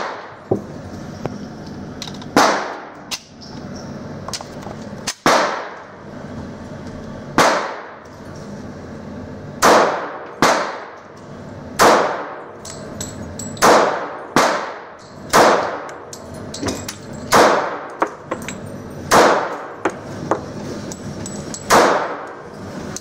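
A string of about a dozen .45 ACP shots from a Schroeder Bauman 1911 pistol, fired one every one to two seconds. Each shot rings on in the echo of an indoor shooting range.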